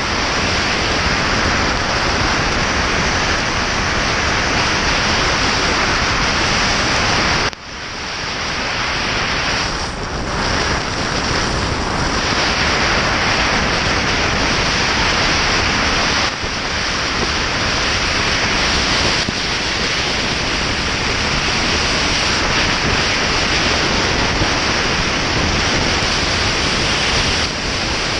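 Steady rush of wind buffeting the microphone of a camera on a motorcycle at highway speed in heavy rain, mixed with the hiss of rain and the wet road. The noise drops sharply for a moment about seven seconds in, then builds back.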